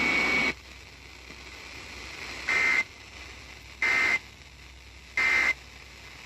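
Emergency Alert System end-of-message tones: three short, identical digital data squawks about 1.3 seconds apart, the SAME code bursts that close a broadcast warning. Before them, a loud hissy stretch with a steady high tone cuts off about half a second in.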